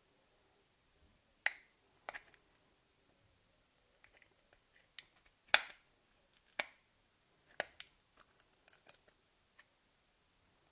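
Sharp plastic clicks and snaps as a plastic pry tool levers the printed front lens insert off a Siemens A40 phone's front housing. About a dozen irregular clicks, the loudest a little past the middle.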